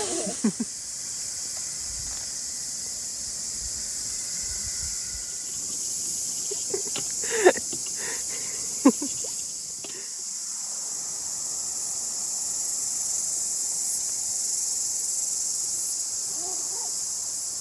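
Insects chirring steadily in a continuous high-pitched hiss, with two short sharp knocks, one about halfway through and another a second and a half later.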